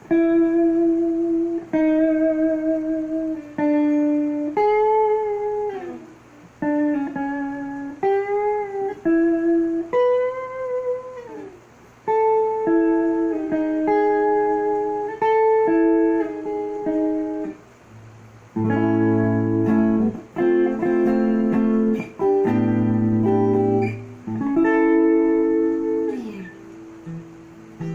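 Jackson KVXMG King V electric guitar being played: sustained single notes with bends and vibrato, then fuller chords about two-thirds of the way through, and a note sliding down in pitch near the end.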